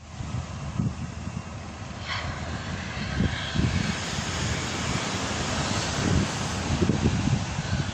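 Jet airliner engines running steadily, with wind gusting on the microphone and a faint high whine near the end.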